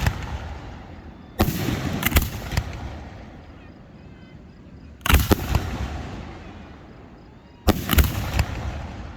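Fireworks exploding in three volleys, each a quick cluster of two or three sharp bangs followed by a rolling rumble that fades over a couple of seconds.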